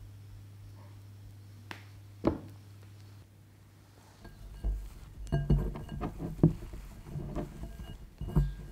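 Spatula spreading chocolate frosting over a chocolate cake, quiet over a low hum, with two sharp clicks. Then, from about halfway, hands crumbling and squeezing moist chocolate cake in a ceramic bowl: irregular soft squishes and thuds, with clinks as fingers knock the bowl.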